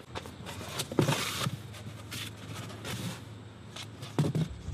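Cardboard packing inserts being pulled out of a large engine box: irregular rustling and scraping of cardboard, loudest about a second in, with a few knocks and a thump near the end.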